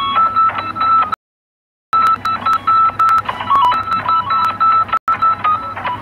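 Electronic countdown jingle in a quiz app: short, loud beeps hopping between a few pitches in a quick melody, with ticking clicks. The sound cuts out for under a second about a second in, then resumes.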